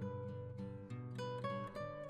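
Background music: acoustic guitar playing a run of plucked notes over a low bass line.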